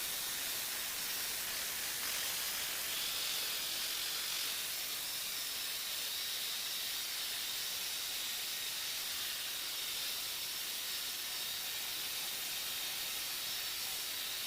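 Shower water spraying steadily, a constant even hiss.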